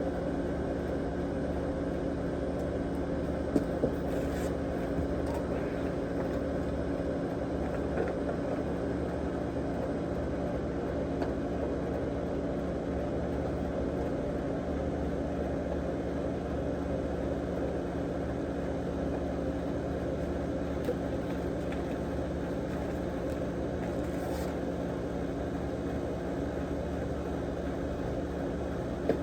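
Air conditioner running with a steady, unchanging hum, with a few faint clicks here and there.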